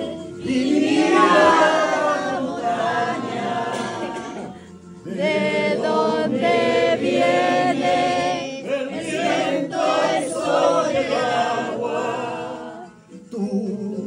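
A group of people singing a Spanish-language song together, unaccompanied by any instrument, with brief breaks between lines.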